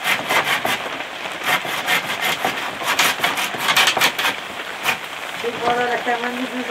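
Irregular ticking and tapping, several a second. About five and a half seconds in, a held pitched voice-like call begins.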